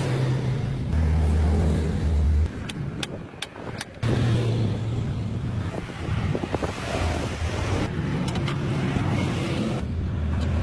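Low mechanical hum of a running machine that shifts in pitch a few times and drops away briefly, with a few sharp clicks in the middle.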